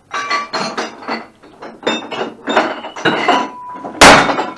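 Metal hand tools clinking and clattering in a bin as someone rummages through them, then one loud smashing blow from a swung tool about four seconds in.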